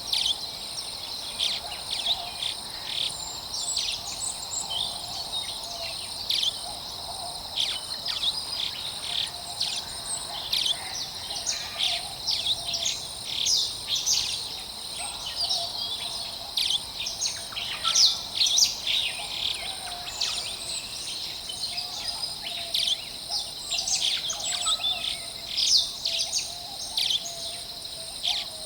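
Forest birds chirping and calling in many short, quick notes throughout, over a steady high-pitched drone of insects.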